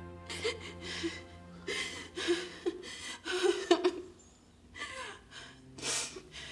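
A woman crying, sobbing in shaky gasping breaths with short whimpers, over a low steady music drone. There is a sharp intake of breath near the end.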